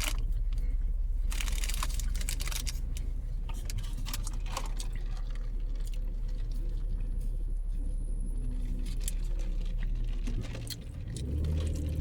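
Crinkling and small clicks of fast-food packaging being handled over a steady low hum. A vehicle's rumble builds near the end.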